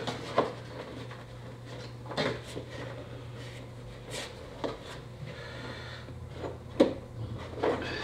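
Hands working on plastic trim and fittings under a Chevy Cruze's open trunk lid: about five sharp, irregularly spaced knocks and clicks, the loudest near the start and about seven seconds in, over a steady low hum.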